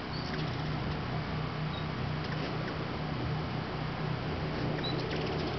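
A few short, faint high chirps, typical of hummingbird chip calls, over a steady low hum and background hiss.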